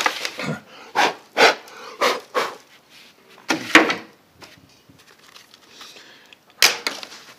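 Irregular clicks and knocks of plastic and metal as the lens holder and lens plate of an old welding helmet are worked loose by hand and pulled out of the shell.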